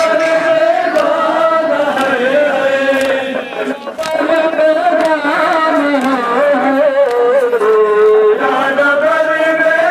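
A noha, a Shia mourning lament, sung by the reciters in a gliding melodic line. Under it the mourners strike their chests in unison (matam), a sharp beat about once a second.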